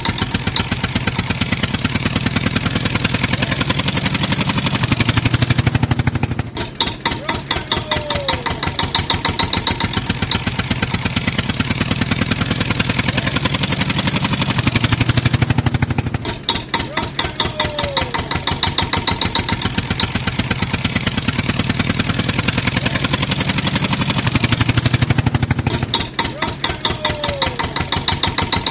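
A recorded tractor engine sound effect running at a steady chug. It is looped, repeating about every nine and a half seconds, with a brief dip and a short falling tone each time it starts over.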